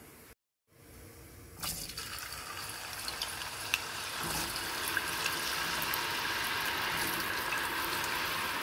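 Fresh-cut potato chips dropped into oil heated to about 360°F in a saucepan: the oil starts sizzling sharply about one and a half seconds in and keeps bubbling and crackling, growing denser as more chips go in.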